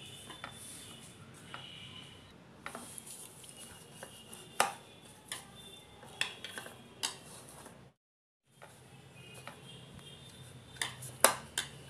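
Hands kneading flour into dough in a bowl: soft rubbing and squishing, broken by scattered light knocks and clicks against the bowl. The sound drops out to silence for about half a second around eight seconds in.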